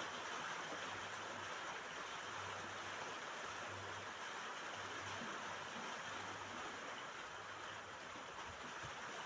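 Steady rain falling on a roof, an even hiss without breaks.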